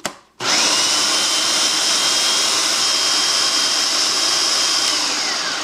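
Food processor motor starting up about half a second in, its whine rising to a steady high pitch as the blade grinds a full jar of mushrooms, chickpeas and vegetables into a paste, then winding down near the end as it is switched off.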